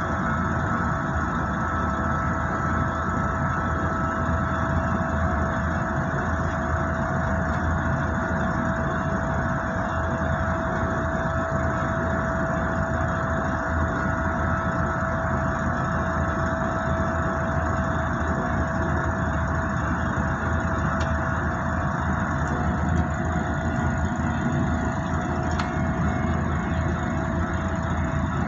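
Container freight train rolling past, a steady rumble heard from inside the cab of an idling prime mover truck, with a steady high-pitched tone throughout.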